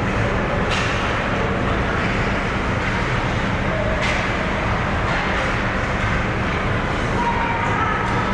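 Ice hockey rink ambience during a youth game: a steady rumble and hiss of the arena and the play on the ice, with faint distant voices and a couple of sharp knocks, one about a second in and one about four seconds in.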